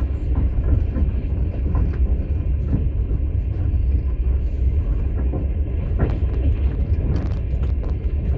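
Steady low rumble of a moving passenger train heard from inside a platzkart sleeper carriage, with a few faint knocks over the running noise.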